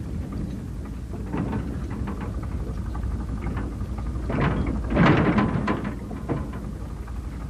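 Low steady rumble of a narrow-gauge wooden passenger carriage being pushed by hand along the rails by a crowd. Indistinct voices from the pushing crowd swell loudest about four to five seconds in.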